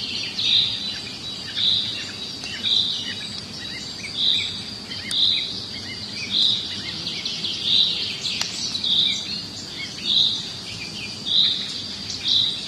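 A bird repeating a short high call about once a second, over a steady high insect drone, with scattered small chirps from other birds between the calls.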